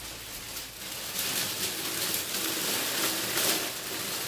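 Crinkling and rustling of the bouquet's plastic cellophane wrapping as the bouquet is carried and laid down, a dense continuous crackle.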